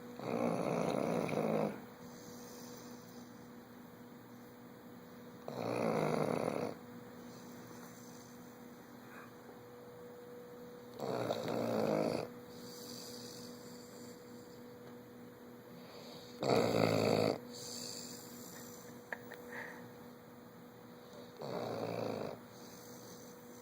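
Bloodhound snoring in its sleep: five loud snores, one about every five and a half seconds, each lasting a second or so, over a faint steady hum.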